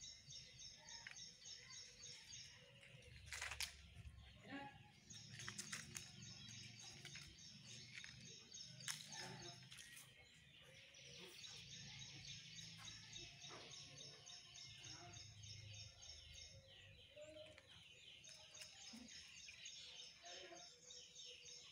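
Birds in the trees chirping in fast, evenly repeated high trills that run for a few seconds at a time, over a faint low rumble, with a couple of sharp clicks.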